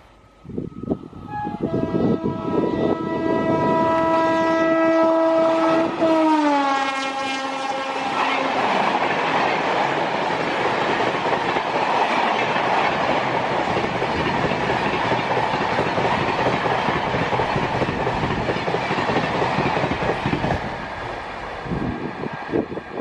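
A high-speed express train's locomotive horn is held as the train approaches, then drops in pitch as it passes about six seconds in and stops soon after. The coaches rush past with a steady clatter of wheels on the rails for about twelve seconds, fading near the end.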